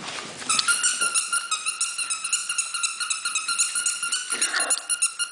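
Squeaky dog toy squeezed over and over, giving a rapid run of high squeaks at one steady pitch, several a second.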